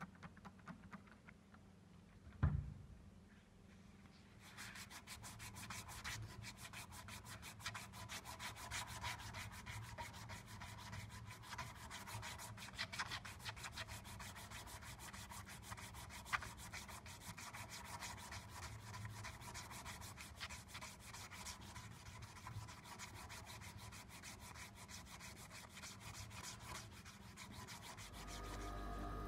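Cloth-backed abrasive strip drawn rapidly back and forth around a knife's red handle, shoe-shine style, sanding it smooth. The strokes start a few seconds in and keep on. A single knock comes just before them.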